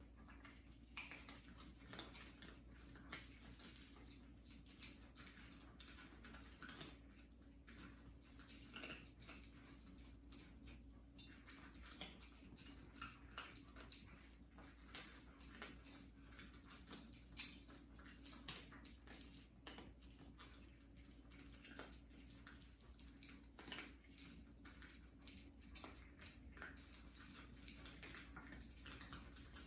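Cats eating: faint, irregular clicks of chewing and mouthing food, over a steady low hum.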